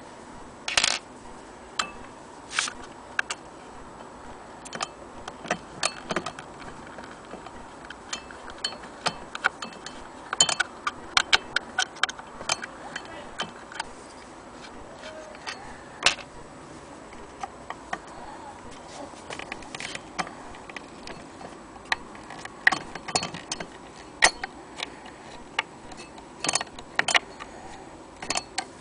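Irregular clicks and knocks as the cast-iron hand-crank attachment of an antique sewing machine and its wooden base are handled: metal parts clicking and wood tapping. There is a quicker run of clicks about ten seconds in, and more toward the end.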